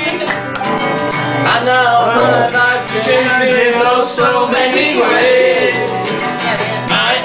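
Live acoustic guitar strummed, with a man singing over it.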